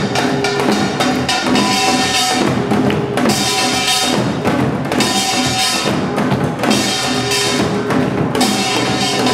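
Samulnori percussion: a kkwaenggwari small brass gong struck in a fast, dense rhythm together with janggu hourglass drums, the gong ringing over the drum strokes throughout.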